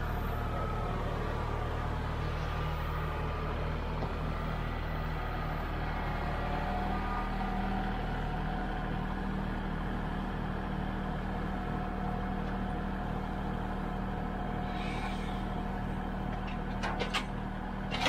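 Kubota L3901 compact tractor's diesel engine running steadily while its front loader and grapple carry an oak log, with a few light knocks near the end.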